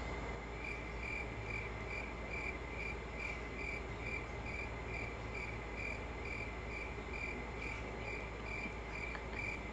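Crickets chirping: a high chirp repeating evenly a little more than twice a second, over a low steady hum. The chirping starts about half a second in and stops just before the end.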